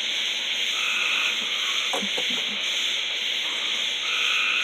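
Night chorus of insects and frogs: a steady high-pitched trilling drone, with a call that comes back every few seconds.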